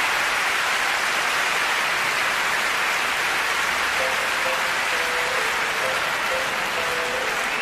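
Large concert audience applauding steadily. About halfway through, a few soft sustained notes from the band come in underneath, the opening of the song's introduction.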